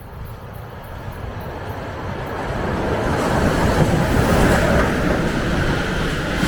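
P36-class steam locomotive approaching on its run-in after repair, the rumble of the train growing steadily louder over about four seconds and then holding.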